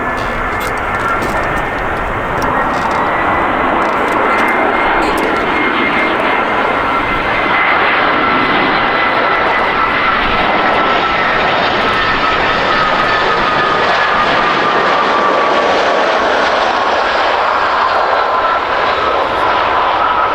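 Jet airliner's engines passing close, a loud steady rush with a high fan whine that slowly falls in pitch.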